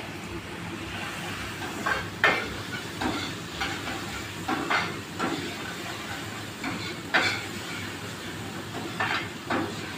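Garlic frying and sizzling in olive oil in a pan, with a metal ladle stirring and scraping against the pan in short, uneven strokes about once a second.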